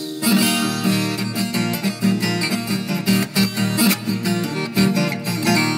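Viola caipira playing an instrumental passage of a moda de viola: a run of quick plucked and strummed notes with no singing.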